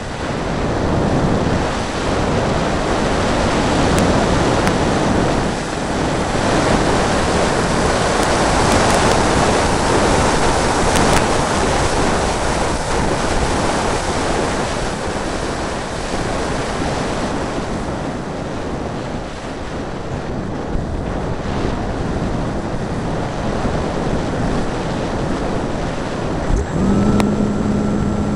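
Steady rushing wind over the airframe and onboard camera microphone of a hotliner RC glider in flight, with no motor tone. About a second before the end the electric motor and propeller start, adding a steady hum with a higher whine.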